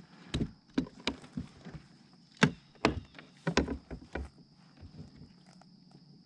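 Irregular knocks and thumps on a plastic kayak hull as a small bass is handled and unhooked in a rubber landing net, the loudest about two and a half seconds in; only faint ticks after about four and a half seconds.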